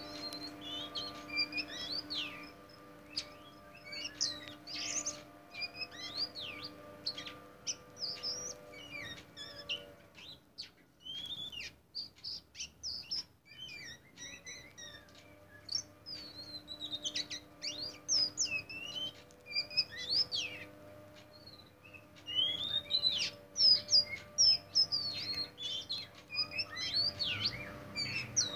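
Caged black oriental magpie-robin (kacer hitam) singing: a long run of rapid, varied whistled phrases with quick rising and falling sweeps. The song thins out for a few seconds in the middle, and a steady low hum runs underneath.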